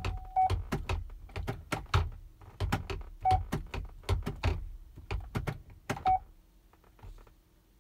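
Chevrolet Suburban's column gear-shift lever clicking through its detents as it is moved between park and the gears, a rapid run of clicks that stops about six seconds in, with three short electronic beeps among them. The clicking is the sign that the shifter cable is connected again, its broken bushing replaced with a 3D-printed rubber-like one.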